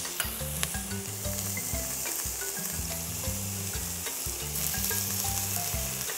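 Garlic and pimento pepper sizzling in hot oil in a stainless steel pot while chopped onion is spooned in, with a few light clicks of a metal spoon against the pot. The sizzle grows louder about four and a half seconds in.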